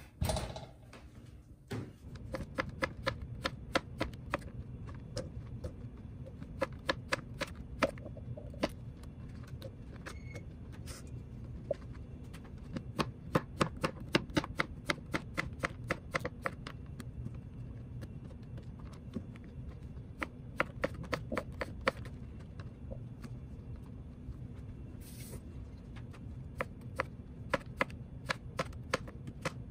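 Kitchen knife chopping vegetables on a cutting board: quick, irregular taps in runs, starting about two seconds in, over a steady low hum.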